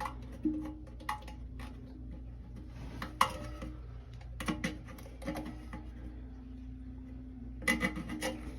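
Scattered small clicks and knocks of plastic flush-valve parts being clipped into place in a toilet tank, over a steady low hum.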